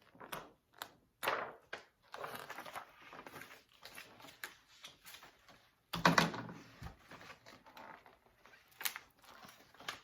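Pages of a large picture book being turned and the book handled: a run of papery rustles and sharp clicks, with the loudest rustle about six seconds in.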